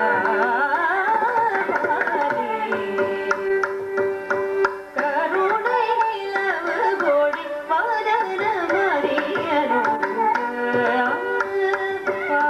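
Carnatic concert music: a woman singing with violin and mridangam accompaniment. The voice and violin slide between held notes over a steady run of mridangam strokes.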